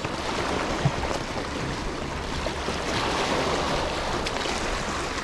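Wind buffeting the microphone over waves washing on the shore, a steady rushing noise, with one brief knock about a second in.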